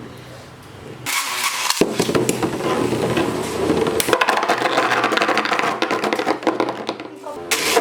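Infinity Nado plastic spinning tops clashing and scraping against each other, a dense rattle of knocks that starts about a second in and stops shortly before the end.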